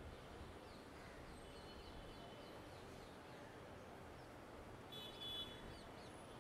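Faint distant city hum, a steady low rumble of far-off traffic, with small birds chirping faintly over it and a brief, clearer burst of chirps about five seconds in.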